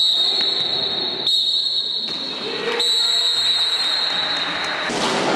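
A long, steady high-pitched signal tone in a futsal sports hall, held for most of five seconds with two brief breaks, then cutting off near the end, over the hall's background noise.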